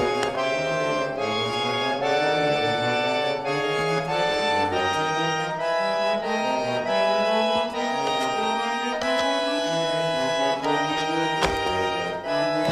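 Instrumental background music: held, reedy chords over a stepping bass line, with a single sharp hit near the end.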